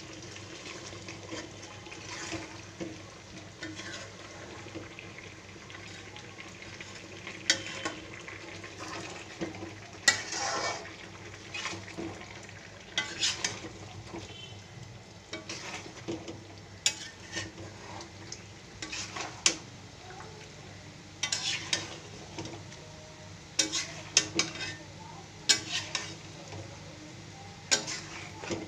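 A cooking spoon stirring chicken and potato curry in a metal kadai, with irregular clinks and scrapes of the spoon against the pan over a steady low frying hiss.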